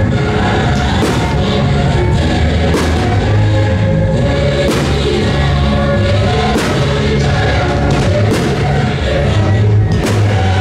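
Loud soundtrack music with singing voices, punctuated by strong hits about every two seconds.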